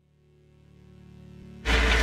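Kesla C860A wood chipper: a low engine hum fading in and growing, then, about a second and a half in, the loud, rough noise of the chipper crunching wood starts suddenly.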